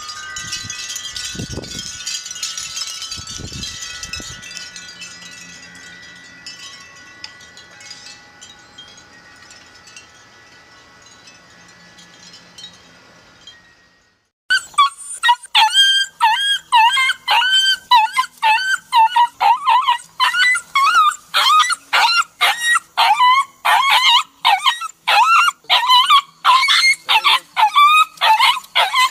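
Wind chimes ringing and slowly fading away. About halfway through, a dog starts barking in quick yaps, about three a second.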